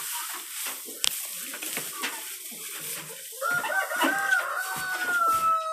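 Rustling and a few clicks, then about three and a half seconds in a rooster crows: one long, held call that falls slightly in pitch.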